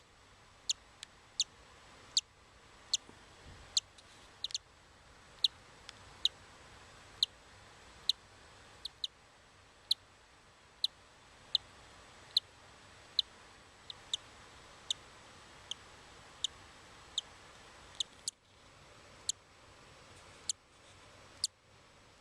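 Cockatiel chick cheeping: short, high peeps repeated irregularly, about one a second.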